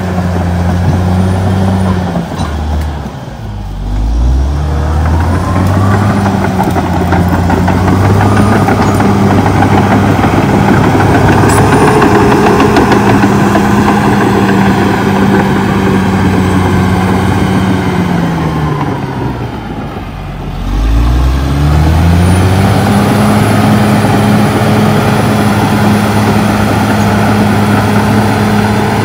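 CAT D6R XL bulldozer's diesel engine running hard with a steady drone while the dozer works brush. Twice, a few seconds in and again about two-thirds through, the engine note drops sharply and then climbs back up.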